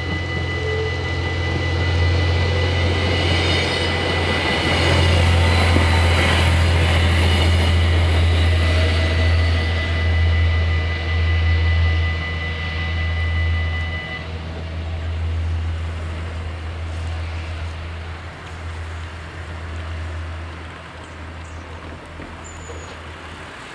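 Level-crossing warning bells ringing steadily over the low rumble of a Stadler GTW diesel railcar passing, loudest about a quarter to half of the way in. The bells stop a little past halfway and the rumble fades away.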